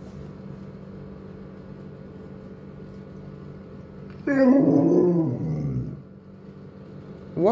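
A Doberman gives a drawn-out, yawning vocal groan about four seconds in, its pitch wavering and then sliding down. Near the end a second call begins, rising in pitch. A faint steady hum sits underneath.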